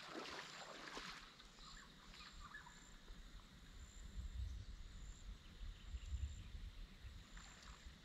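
Faint river-bush ambience: water sloshing and splashing, mostly in the first second, with a low wind rumble on the microphone from about four seconds in. A short, high note repeats about once a second throughout.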